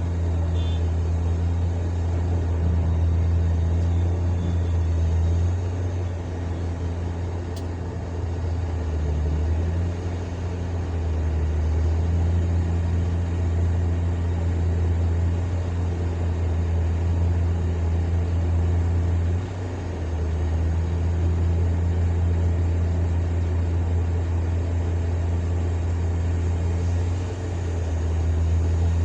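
Heavy diesel engine of a Hyundai 1250-9 excavator running with a deep, steady drone. It eases off briefly a few times as the load changes.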